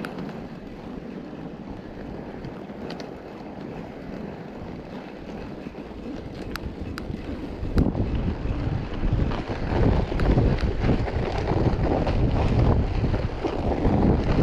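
Wind rumbling on the camera microphone during a mountain-bike ride through snow. A few sharp clicks come in the first half, and the rumble gets much louder about eight seconds in.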